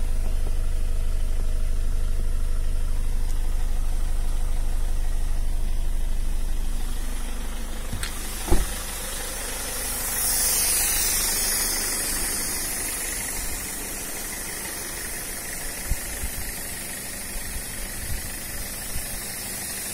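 Toyota Innova engine idling steadily while being fed HHO gas for engine carbon cleaning. It is heard first from inside the cabin and then from outside beside the open bonnet. A single sharp clunk comes about eight and a half seconds in, and a few light clicks follow near the end.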